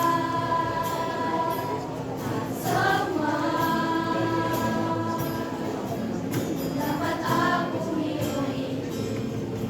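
Junior high school choir singing in several voices, holding long sustained notes that shift to new pitches about three seconds in and again about seven seconds in.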